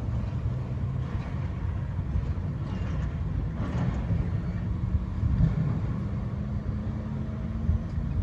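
Heavy machinery's engine running with a steady low rumble, with a few faint knocks.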